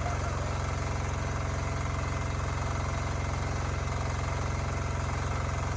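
Engine idling steadily, with an even low pulsing.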